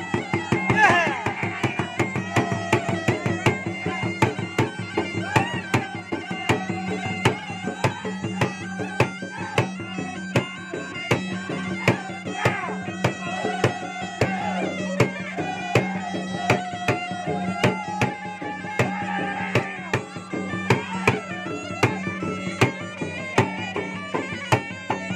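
Makassar gendang drums beaten in a fast, steady pattern with a thin stick and the bare hand, under a reedy wind pipe (puik-puik) playing a wavering, ornamented melody.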